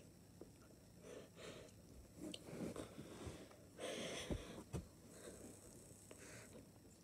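A boy breathing during push-ups, short puffing breaths every second or so, heaviest about four seconds in, with a couple of soft thumps just after.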